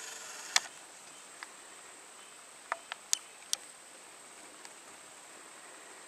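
A steady high-pitched insect trill, over which come scattered short, sharp clicks and ticks: the loudest about half a second in, a cluster around three seconds in.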